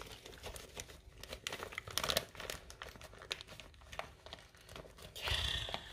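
Irregular crinkly, crunching clicks of an animal chewing a treat, with a brief rustle about five seconds in.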